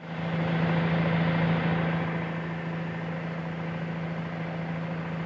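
Angle grinder with a diamond polishing pad running steadily on an agate, a constant motor hum.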